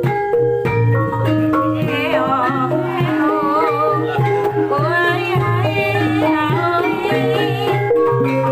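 Javanese gamelan ensemble playing: bronze bonang pot gongs and other metallophones sound an interlocking melody over kendang drum strokes and low gong tones. About two seconds in, a high wavering melody line joins above the ensemble.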